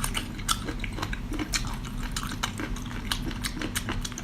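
Close-miked eating: chewing and biting with many quick, irregular wet clicks from the mouth, over a faint steady hum.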